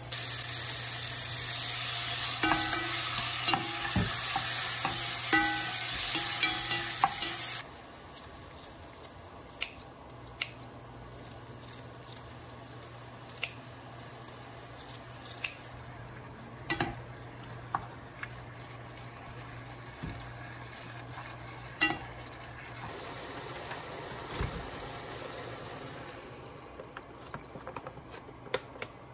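Food sizzling in a frying pan while a utensil stirs it, clinking against the pan. The sizzling cuts off suddenly about seven and a half seconds in; after that come quieter kitchen sounds with scattered light clicks and taps.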